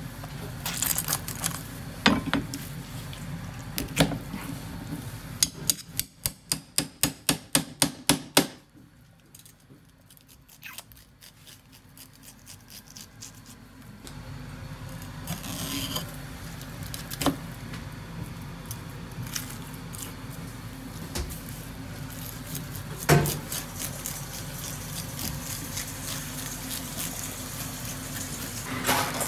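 Knife work on a wooden cutting board while a conger eel is cut and filleted: scattered sharp knocks of the blade and hand on the board, with a quick run of about a dozen rapid taps, about four a second, a few seconds in, and a single louder knock later on.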